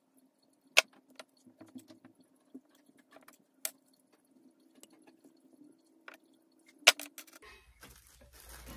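Small metal clicks and jingles of jewelry pliers, jump rings and metal charms being handled on a tabletop while charms are fitted to a wire bangle, with three sharp clicks standing out, over a faint steady hum.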